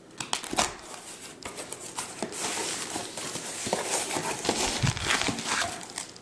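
Knife blade slitting the packing tape along a cardboard box's seam with a run of scraping and crackling, then the cardboard flaps being pulled open with rustling and crinkling of plastic wrap.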